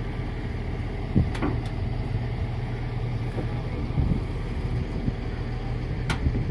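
An engine running steadily at an even low pitch, with a few sharp knocks over it: the loudest about a second in, others about four seconds in and near the end.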